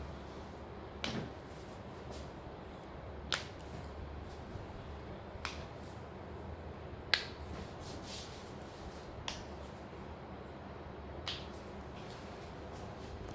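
Joints cracking under chiropractic manipulation: six sharp pops about two seconds apart, the loudest a little past the middle.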